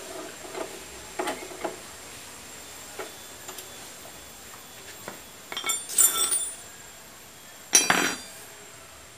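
Metal hand tools clinking and clattering against metal during motorcycle brake repair: a few light clicks, a jangling clatter about six seconds in, and a single louder clank near the end.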